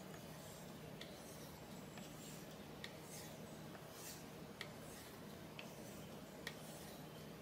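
Kitchen knife being stropped edge-trailing on a handheld leather strop loaded with 1 micron diamond compound: faint soft strokes with a few light ticks, the last burr being cleaned off the edge.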